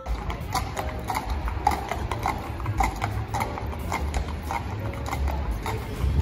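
Hooves of two mounted police horses clopping at a walk on a paved street, a steady beat of about three steps a second.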